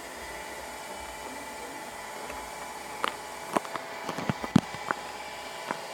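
Slime mixture of foam glue being stirred in a container, with a handful of sharp clicks and taps against the container from about halfway in, over a steady background hiss.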